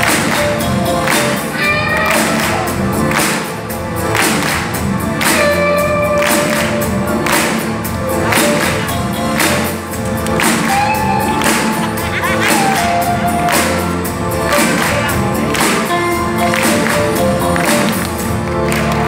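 Live rock band playing a song with a sung lead vocal: drums keeping a steady beat under bass, guitars, piano and keyboards.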